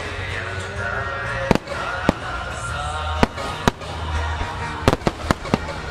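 Aerial firework shells bursting in a string of sharp bangs, about seven spread unevenly through the few seconds, over background music.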